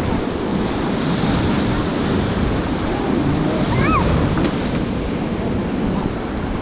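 White-water river rushing steadily, with wind buffeting the microphone. A short rising-and-falling shout sounds briefly about two-thirds of the way in.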